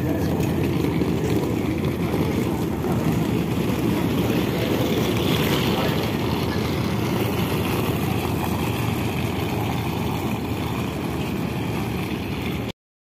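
Steady low rumble of a docked IDO ferry's engines running at the pier, with faint crowd noise; it cuts off suddenly near the end.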